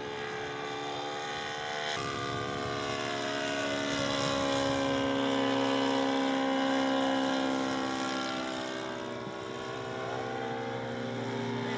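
Radio-controlled scale model airplane's engine and propeller running in flight, a steady pitched drone that grows to its loudest about six seconds in and then eases off, its pitch sliding gently as it passes.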